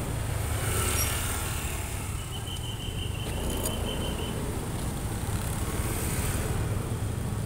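Motor scooters running and riding past in busy street traffic, a steady low engine rumble. A thin high steady tone sounds for about two seconds near the middle.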